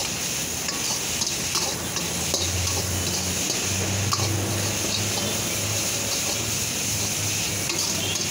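Schezwan noodles being stir-fried in a wok: a metal ladle stirs and scrapes through them against the pan, with a steady sizzle and repeated clinks of metal on metal.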